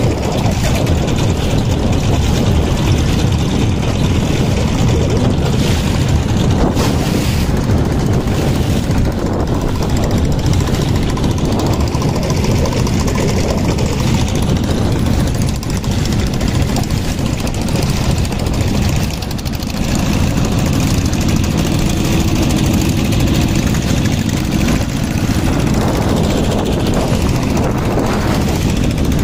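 A motorboat's engine running steadily and loudly, with a slight dip about two-thirds of the way through.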